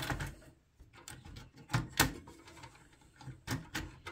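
Sharp plastic clicks and knocks from the push-pin fasteners of a stock Intel CPU cooler, twisted and pulled loose so the cooler comes free of the motherboard. There are about five separate clicks, the loudest about two seconds in.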